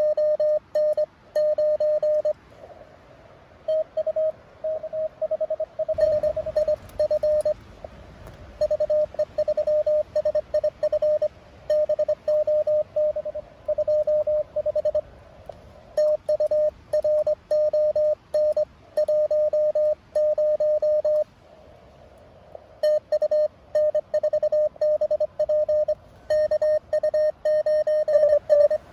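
Morse code (CW) from a Mountain Topper MTR-4B ham transceiver on a small speaker: one steady mid-pitched tone keyed on and off in quick dots and dashes, the exchanges of contest contacts. Some stretches come in weaker over a faint band hiss.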